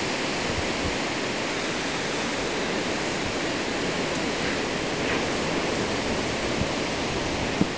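Steady wash of surf breaking along the beach, mixed with a strong offshore wind blowing across the microphone.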